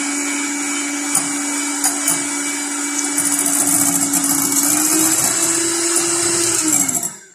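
Electric hand mixer running steadily as its beaters whip egg whites and powdered sugar toward a creamy meringue, with a few clicks. Its hum rises slightly in pitch about two-thirds of the way through, then winds down and stops just before the end.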